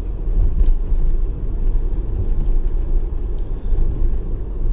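Steady low rumble of a car driving along a road, heard inside the cabin: engine and tyre noise.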